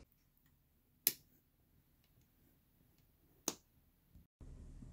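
Two short, sharp plastic clicks about two and a half seconds apart as a baby gate's plastic wall bracket is pressed and seated against the wall. Between them, near silence.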